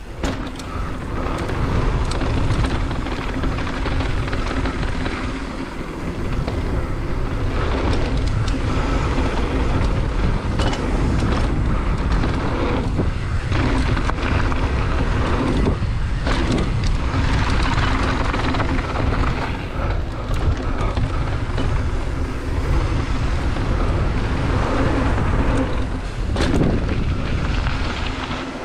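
Rush of wind on the camera microphone as a GT Fury downhill mountain bike descends a dirt jump trail at speed, with its tyres rumbling over packed dirt and scattered knocks and clatter as the bike hits bumps and lands jumps.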